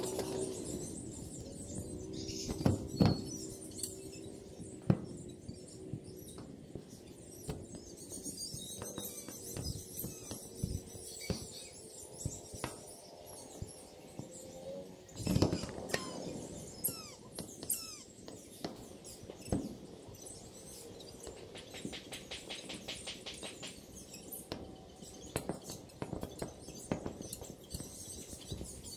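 Scattered high chirps of small birds with a few dull thumps and knocks, and a short rapid buzzing trill a little past the two-thirds mark.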